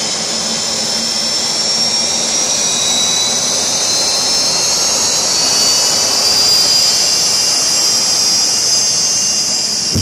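Green Mamba jet car's turbine engine spooling up: a loud steady rushing whine with several high tones slowly rising in pitch as the pressures build.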